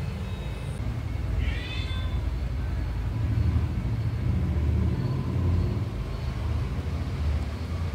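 A cat purring close to the microphone: a continuous low rumble that swells and eases every second or two. About one and a half seconds in, a cat gives one short high chirp.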